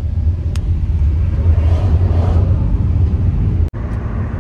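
Steady low rumble of a vehicle in motion, with a click about half a second in and a momentary drop to silence near the end.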